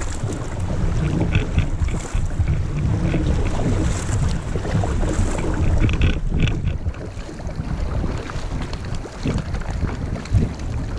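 Kayak paddling on a shallow river: the paddle blades dipping and splashing, over flowing water and a low rumble of wind on the microphone.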